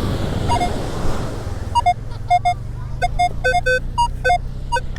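Metal detector giving a run of short beeps at a few different pitches as the coil sweeps back and forth over a target, the high-conductivity response that the detectorist reads as a coin. The beeps come sparsely at first and then rapidly from about two seconds in, over a steady low rumble.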